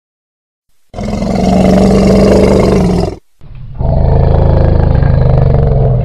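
Angry elephant roaring: two long, loud, low roars. The first starts about a second in, and the second follows a brief break and runs longer.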